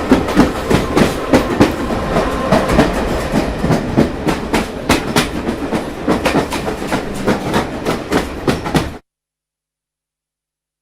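Train wagons rolling past at speed, wheels clattering over rail joints in a rapid clickety-clack. The sound cuts off abruptly about nine seconds in.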